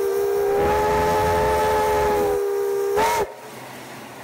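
Steam locomotive whistle blown once: a steady chord of several tones that cuts off with a short upward blip a little over three seconds in, followed by a softer hiss of escaping steam.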